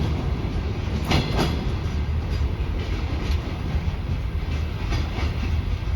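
Freight train rolling past: a steady rumble with irregular clicks of wagon wheels over the rail joints.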